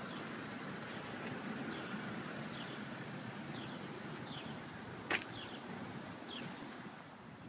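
Outdoor ambience: a steady background hiss with a small bird's short, high chirps repeating about once a second, and one sharp click about five seconds in.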